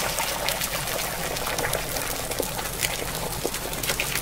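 Beaten egg poured in a thin stream into a hot small frying pan, setting as it lands: a steady sizzling hiss with scattered crackles.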